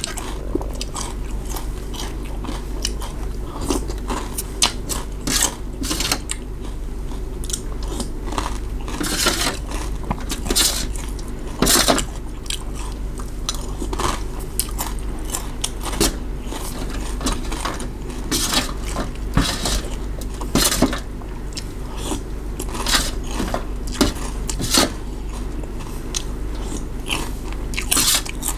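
A person chewing and eating beef noodle soup, with frequent irregular clicks and scrapes of a metal spoon and wooden chopsticks against a steel tray, over a steady low hum.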